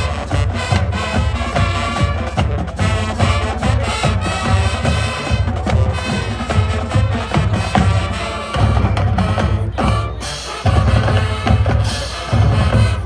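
High school marching band playing, brass over a drumline with bass drum and snare hits on a steady beat.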